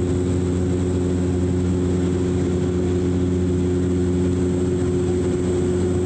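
Cabin drone of a De Havilland Canada Dash 8 Q400's turboprop engines and six-blade propellers in the climb after takeoff: a steady low hum made of several steady tones, with a faint high whine above it.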